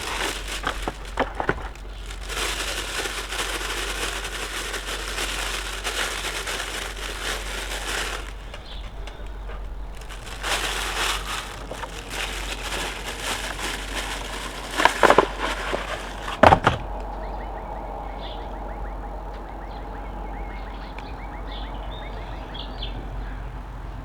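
Crinkling and crackling of fire-starter wrappers being handled and torn open, in two long stretches, with a few sharp knocks near the end of the second.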